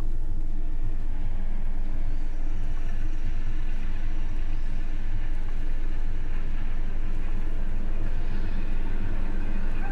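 A steady, low droning rumble, with fainter high tones joining in about two seconds in.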